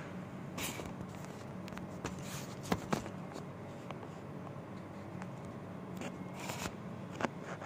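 Scattered light clicks, rustles and scrapes of handling, with sharper knocks about three seconds in and near the end, over a steady low room hum.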